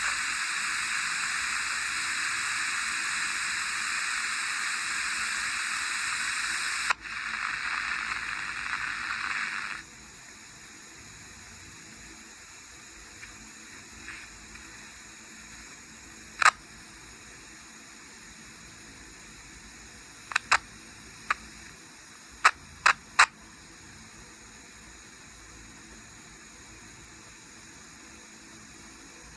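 Sony ICF-SW12 shortwave radio's speaker hissing with static, as when tuned off a station. There is a click about seven seconds in, and around ten seconds the hiss drops to a much lower level. Later come several sharp clicks, one alone and then a quick cluster of five.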